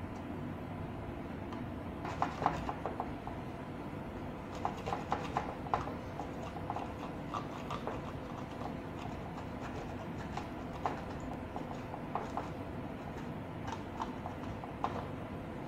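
Tissue rubbing and scrubbing over the solder side of a printed circuit board, with irregular bursts of light clicks and scratches, densest in the first six seconds, over a steady background hum.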